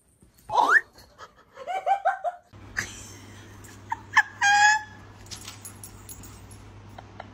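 Pet animals crying out: a quick rising cry and a run of rapid short calls, then a German Shepherd's high-pitched whining yelp over a low steady hum.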